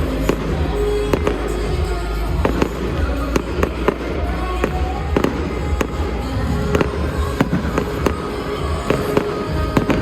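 Fireworks bursting in rapid succession, a dense run of sharp bangs and crackles several times a second.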